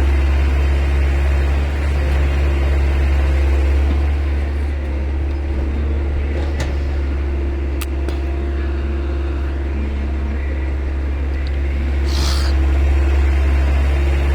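Heavy diesel engine running steadily with a deep, even hum. A few sharp clicks come midway, and a short hiss comes near the end.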